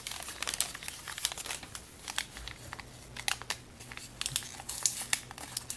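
Silver foil blind-bag packet of a Million Warriors figure crinkling and tearing as it is peeled open by hand, a rapid run of sharp crackles.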